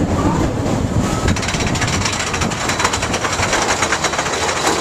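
Big Thunder Mountain Railroad roller coaster train running on its track, a low rumble with a fast, even clattering rattle that sets in about a second in.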